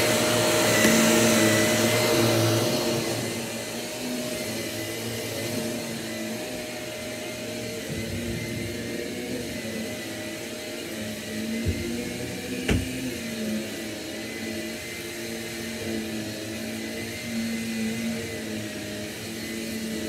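Shark Navigator upright vacuum cleaner running on carpet, a steady motor hum that drops in level about three seconds in. A couple of short knocks come a little past the middle.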